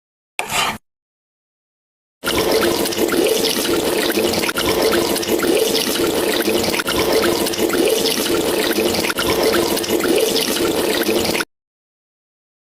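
Running water: a steady splashing rush that starts abruptly about two seconds in, lasts about nine seconds, and cuts off sharply.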